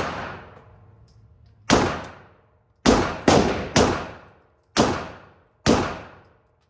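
Six handgun shots fired one at a time at an uneven pace, the third and fourth coming in quick succession. Each shot is a sharp crack followed by an echoing tail that dies away within about a second.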